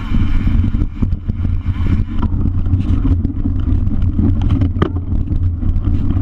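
Wind rushing over a bike-mounted camera's microphone, with the rumble and rattle of a mountain bike rolling fast over a dirt trail. There is a sharper click about five seconds in.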